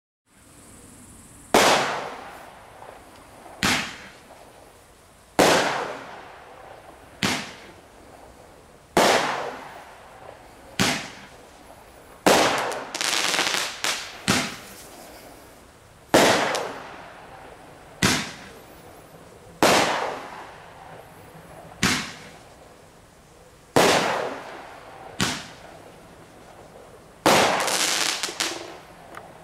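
Eight-shot roman candle firing: about sixteen sharp bangs and pops, roughly one every two seconds, each trailing off. There is a spell of crackling near the middle and again near the end.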